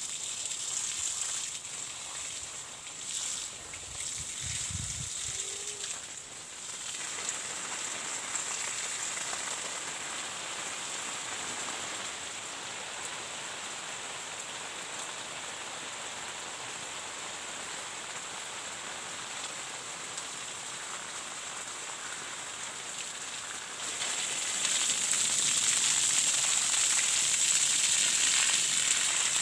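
Water jetting from a garden hose and splashing onto plants and dry leaf litter, a steady rain-like hiss that grows clearly louder about 24 seconds in, when the stream is turned down onto the ground close by.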